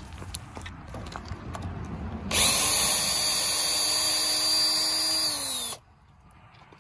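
Cordless drill motor whining at a steady speed for about three and a half seconds, backing a screw out of wood. Before it there are faint rustles and light clicks. The whine drops slightly in pitch just before it cuts off suddenly.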